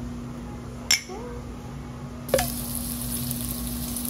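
Chunks of pork sizzling on a perforated steel grill plate over charcoal. The sizzle comes in after a sharp click a little past halfway. Before that there is only a steady low hum and another click.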